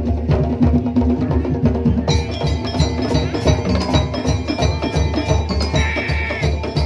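Patrol percussion ensemble playing live: a steady beat of drums and wooden knocks with small kettle gongs and an electronic keyboard. About two seconds in, a fast, even high ticking joins the rhythm, and near the end a high note is held briefly.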